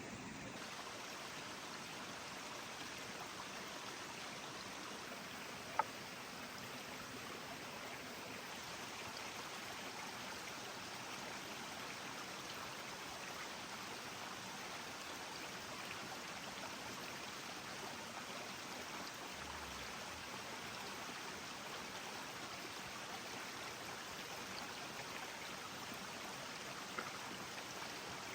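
Steady rush of a running stream, with two sharp snaps, one about six seconds in and a fainter one near the end.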